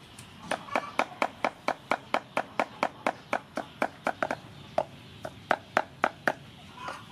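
Cleaver chopping raw shrimp on a thick round wooden chopping block: a quick, even run of knocks about five a second, thinning to a few scattered strokes before it stops near the end.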